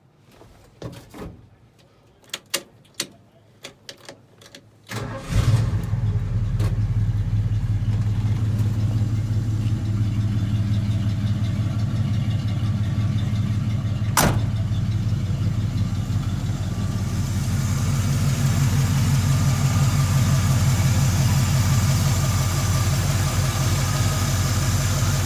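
1970 Ford F100 pickup cold-starting: a few clicks and knocks, then the engine fires about five seconds in and settles into a steady idle, running a little louder from about two-thirds of the way through. A single sharp click comes about halfway through.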